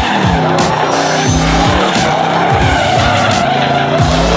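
Loud racing sounds, an engine at speed with tyre squeal, mixed with music carrying a heavy, regular bass beat and repeated sliding bass notes.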